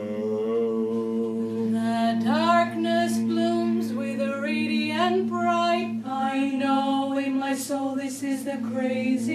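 Wordless singing by voices over a steady low drone, the melody sliding up in a swoop about two seconds in and moving in held, gliding notes after that.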